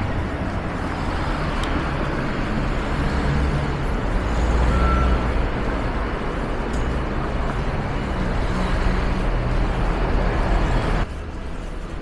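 Road traffic at a city intersection: cars and trucks running past with a steady low rumble. It drops off suddenly near the end.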